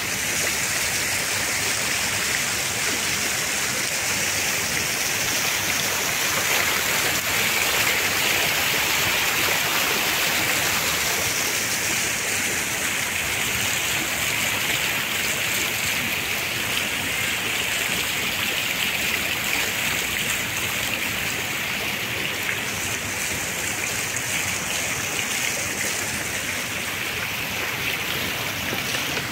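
Ornamental fountain jets splashing steadily into the pool, a continuous rush of falling water.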